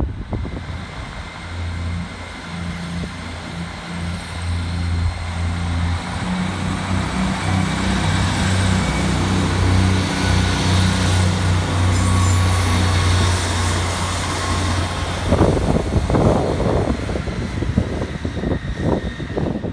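Diesel train running past at close range: a steady low engine drone under a rushing rail noise that builds towards the middle, then uneven thumping rumble near the end.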